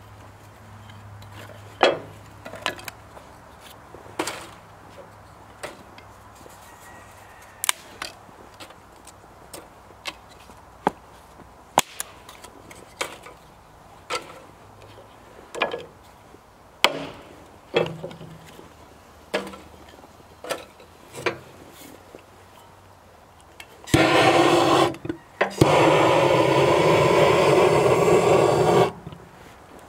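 Split kindling sticks knocked and laid into a small cast-iron stove's firebox, a series of separate sharp clicks and clunks. About 24 seconds in, a handheld propane torch blasts flame into the kindling with a loud, steady hiss for about five seconds, breaking off briefly once, to get the fire going.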